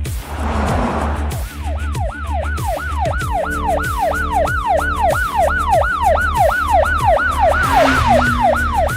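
Ambulance siren in yelp mode: a fast up-and-down wail repeating about three times a second, starting about a second and a half in after a brief whoosh. Background music with a steady pulsing bass runs underneath.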